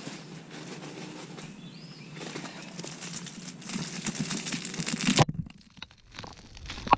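Crinkling, crunching noise of bagged mulch being handled and spread. It grows louder toward the middle and cuts off abruptly about five seconds in, and a single sharp click comes near the end.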